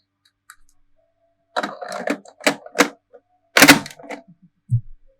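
Plastic clicks and snaps of a DX Ark Zero One Progrise Key toy being handled and operated by hand: a quick run of clicks with one loud snap about three and a half seconds in.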